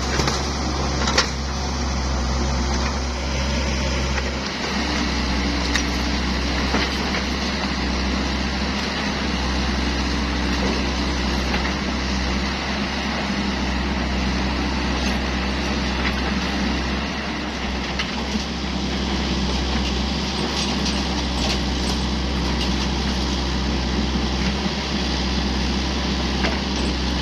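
Kubota U50 mini excavator's diesel engine running steadily under work, with a higher whine that comes in about five seconds in and fades in and out, and occasional sharp knocks.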